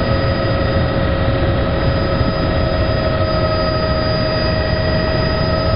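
Helicopter in flight, heard from on board: a steady engine whine made of several held tones over a constant low rotor rumble.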